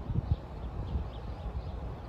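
Outdoor nature ambience: faint, short bird chirps over a low, uneven rumble.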